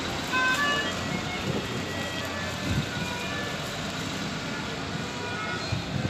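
Busy town-street ambience: a steady wash of road-traffic noise, with a few short high tones in the first second.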